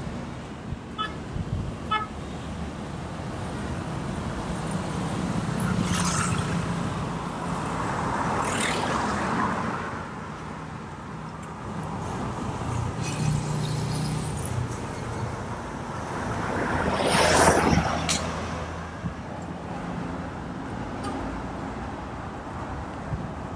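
City road traffic: several vehicles drive past one after another, the loudest going by close about 17 seconds in, with a couple of short horn toots about a second in.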